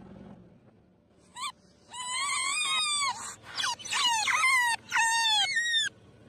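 Rubber squeeze toys squeaking as a car tyre presses them flat: a short squeak about a second and a half in, then a run of long and short squeals, each dropping in pitch as it ends.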